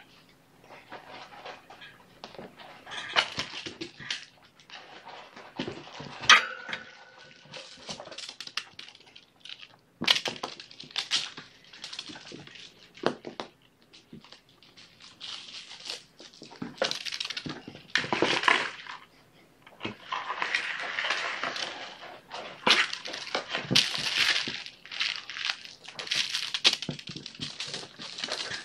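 Kittens playing and being handled: irregular rustling, scratching and crinkling of toys and a cardboard box, with scattered sharp clicks, the loudest about six seconds in.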